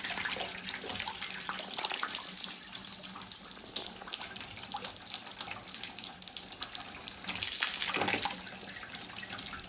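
Water draining out of a hot-water boiler's piping and splashing steadily into a bucket as the system is drained down.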